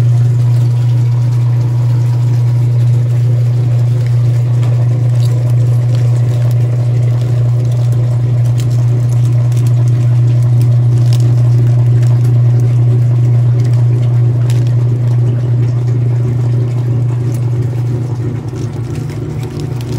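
Whirlpool direct-drive top-load washing machine running in its rinse cycle, its motor giving a loud, steady low hum.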